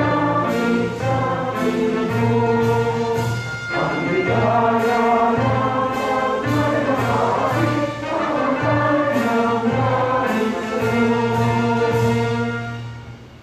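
Choir singing with orchestra and brass, a solemn piece that fades out near the end.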